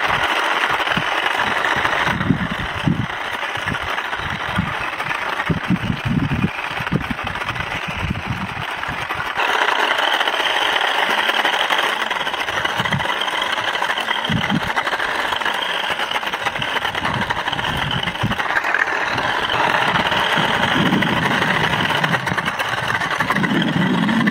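Battery-powered RC toy sports car driving: its small electric drive motors and gearing whir loudly while the tyres run, with irregular low thumps as it moves and turns. The whir shifts in level a couple of times as the car changes what it is doing.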